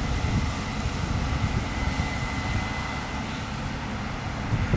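Steady low rumble of a Case 8230 combine's engine running at a distance while it unloads grain into a grain truck, with a faint thin whine above it.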